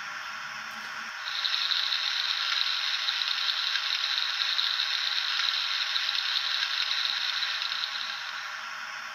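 A Hornby TTS sound decoder in an OO gauge Black 5 model plays a steady hissing effect through its small speaker. The hiss starts about a second in, lasts about seven seconds and fades out near the end.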